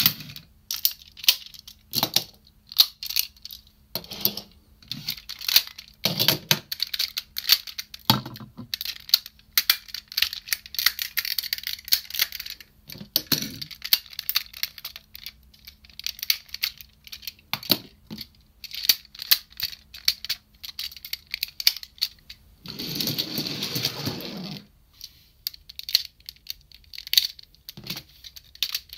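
Hard-plastic parts of a DX Cho ToQ-Oh combining robot toy being unclipped and pulled apart by hand into separate train cars: a steady run of clicks, snaps and clacks. Near the end comes a rasping plastic-on-plastic slide lasting about two seconds.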